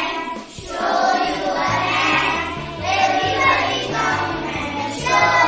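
A group of children's voices singing a children's song over a music backing track, with a bass line coming in about two seconds in.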